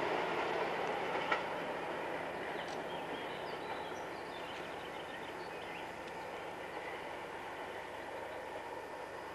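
Passenger train coaches running away on the rails, their wheel rumble fading steadily, with one sharp click about a second in.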